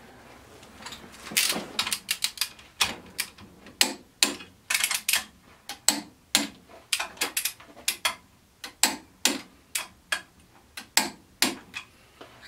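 Long click-type torque wrench tightening the carrier cap bolts on a Ford 9-inch third member: a run of sharp metallic clicks from the ratchet head, a few each second at an uneven pace.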